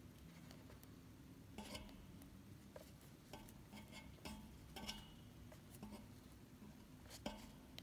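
Near silence with a few faint, scattered clicks and taps of a smartphone being handled.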